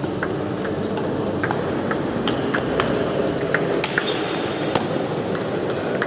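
Table tennis ball clicking back and forth off the bats and the table in a rally, sharp knocks about every half second, several of them ringing with a short high ping. A steady low murmur of a large hall lies underneath.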